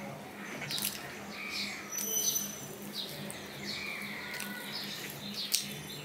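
Close-miked eating sounds: wet chewing and lip smacking as curry-soaked paratha and chicken are eaten by hand. Fingers work the food on a steel plate, with a few sharp clicks, the loudest about five and a half seconds in.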